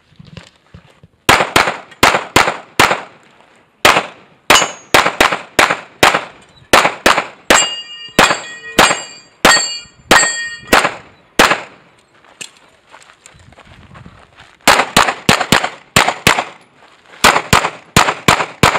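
A long string of pistol shots fired in fast pairs and runs during a practical-shooting stage. Steel targets ring with a metallic clang after several hits in the middle of the string. About two-thirds of the way through there is a pause of roughly three seconds, then a final fast run of shots.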